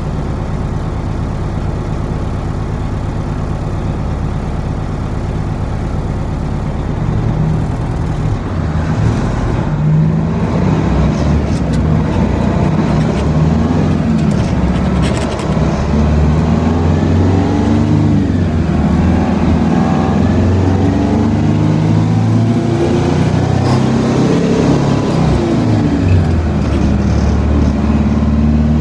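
Detroit Diesel 8V92 two-stroke V8 of a 1978 Peterbilt 359, heard from inside the cab. It runs steadily at first, then from about seven seconds in grows louder, and its pitch climbs and drops again and again as the truck pulls up through the gears of its twin-stick Spicer transmission.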